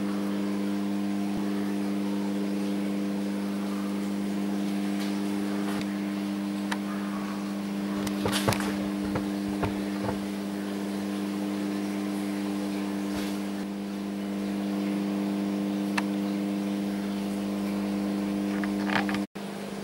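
Steady low mechanical hum, with a few light taps and rustles about halfway through; the hum drops out for a moment near the end.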